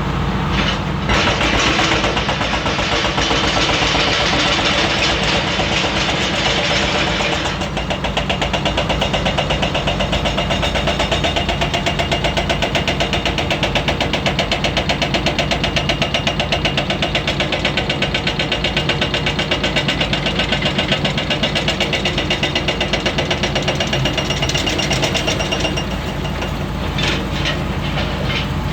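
Komatsu PC400 hydraulic excavator's diesel engine running steadily under working load. A hissing rush fills the first several seconds, then a fast, even pulsing through the middle, and a few clanks come near the end.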